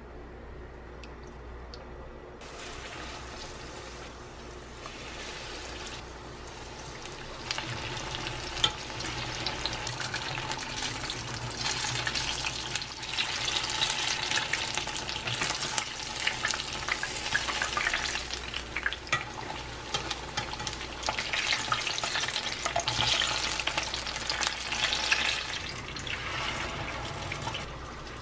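Battered eggplant slices deep-frying in a pan of hot oil: a steady sizzle that grows louder and crackly a few seconds in and eases off near the end.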